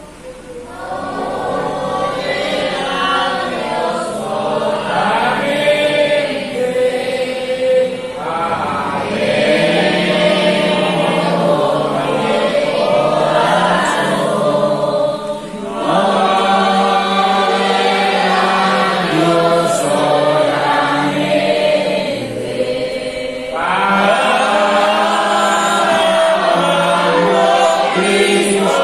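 A church congregation singing a hymn together, many voices in long phrases with short breaks about every seven to eight seconds; the singing comes in about a second in.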